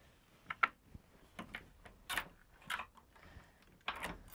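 About five or six sharp knocks and clinks, spaced irregularly, some in quick pairs, from inside a horse trailer as a pony standing in it is handled.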